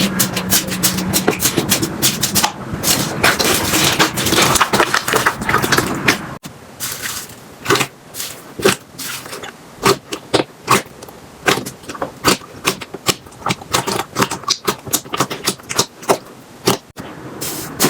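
Slime being squeezed and pressed by hand, making a dense crackling for about six seconds, then after a sudden change a run of sparser sharp pops and clicks.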